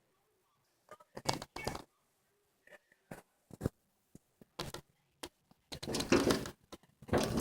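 A bird striking a window pane again and again as it tries to get in: irregular sharp taps and knocks on the glass, some single, some in quick clusters, with a denser flurry near the end.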